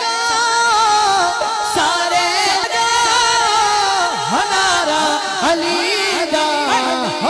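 A male vocalist singing a manqabat, a Sufi devotional song in praise of Ali, holding long wavering, ornamented notes with several deep downward slides, over a steady drone held underneath.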